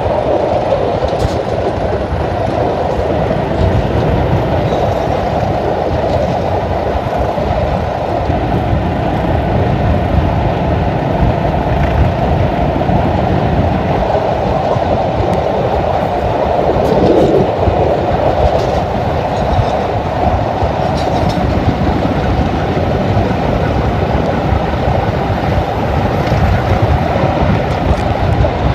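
Hastings diesel-electric multiple unit 1001 running at speed, heard from an open window: a steady loud rumble of wheels on rail and the train's running, with a few sharp clicks as it passes over pointwork.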